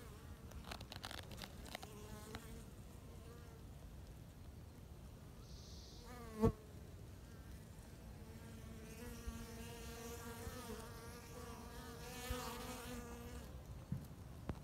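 Honeybees buzzing in flight at a hive entrance as pollen-laden foragers fly in. The wingbeat hum comes and goes as bees pass close, steadiest in the second half. About halfway through there is one brief, much louder buzz.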